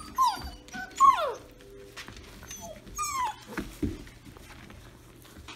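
Six-week-old Irishdoodle puppies whining and whimpering, eager for food being handed out: three short, high cries that fall in pitch in the first three and a half seconds, the loudest about a second in, then quieter.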